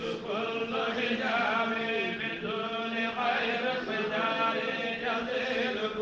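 Voices chanting a qasida, an Islamic devotional poem sung in Arabic, in long held, wavering phrases.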